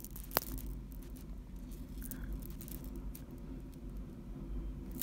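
Faint rustling and small clicks of a bronze-tone metal necklace with dangling medallions being handled, with one sharper click about half a second in.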